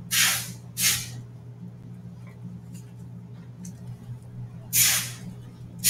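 Steady low electrical hum with three short bursts of breathy hiss, the narrator's breaths on the microphone, one at the start, one about a second in and one near the end.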